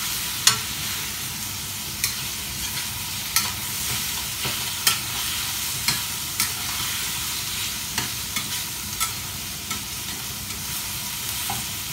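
Shredded chicken sizzling in hot oil in a stainless steel wok, stirred with a metal spatula that clicks and scrapes against the pan about once a second.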